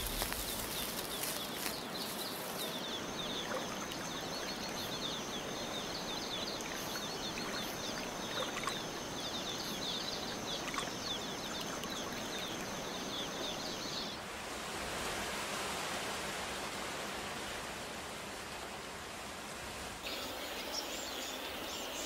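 Rainforest ambience: an even hiss with a thin, steady high whine and rapid, repeated chirping calls. About fourteen seconds in the calls stop and a plainer rushing noise, like running water, takes over.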